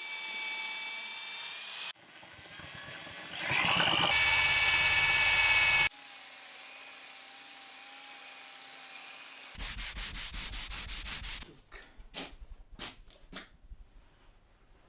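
Woodworking tool sounds in short cut-together pieces: a power tool running with a steady whine, spinning up loudly about four seconds in, then a quick even run of rubbing strokes and slower irregular ones, as in sanding or brushing scorched wood.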